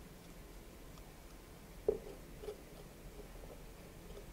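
Faint scraping and squishing of a spoon digging seeds and stringy fibers out of a raw spaghetti squash half, with one sharper scrape about two seconds in.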